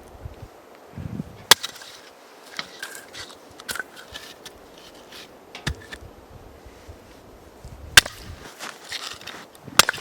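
Axe splitting firewood: a few sharp, loud strikes several seconds apart, with smaller knocks between them.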